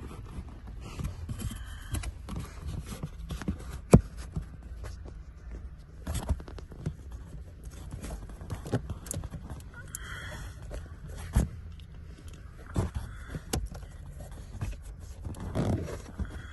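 Irregular metallic clicks, knocks and scrapes of hand tools as a car battery's cable terminal is fitted back onto its post and tightened, with a few sharper clanks scattered through.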